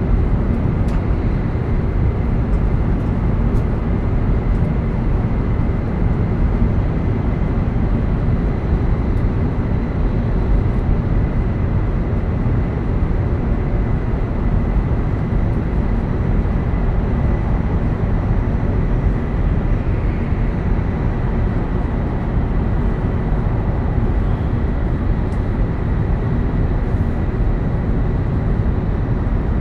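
E7 series Shinkansen running steadily between stations, heard from inside a passenger car: a steady, dense low rumble of wheels and running gear, with a faint thin steady tone above it.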